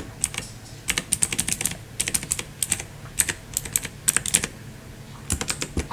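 Keys of a mechanical keyboard being pressed in irregular runs of sharp clicks, several quick presses at a time with short pauses between.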